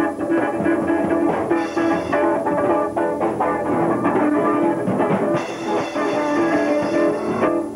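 Rock music with a drum kit keeping a steady beat and guitar playing.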